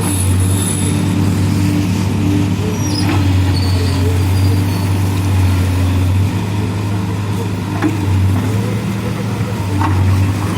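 CASE backhoe loader's diesel engine running steadily, with a few faint knocks over it.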